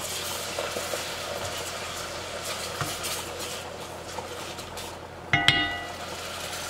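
Wooden spoon stirring milk into a butter-and-flour roux in an enamelled cast-iron pot, a steady scraping swish. About five seconds in comes a short, ringing clink.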